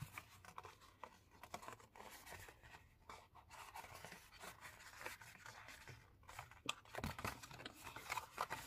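Faint rustling and creasing of a sheet of patterned craft paper being folded by hand, with a few small paper clicks and taps growing more frequent near the end.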